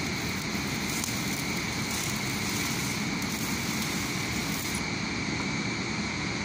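Stick welding on a steel crane rail: the electrode's arc sizzling steadily, breaking off about five seconds in.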